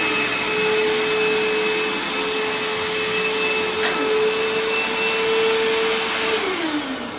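Vacuum cleaner motor running steadily with a constant whine, then switched off near the end, its pitch falling as the motor winds down. The machine is running without its HEPA filter, which the owner says makes it sound a little different.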